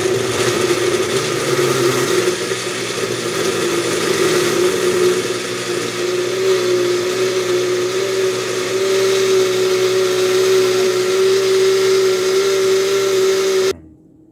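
Single-serve personal blender running steadily as it blends chopped ginger into coconut water, its motor whine creeping slightly higher in pitch as the mix liquefies, then cutting off abruptly near the end.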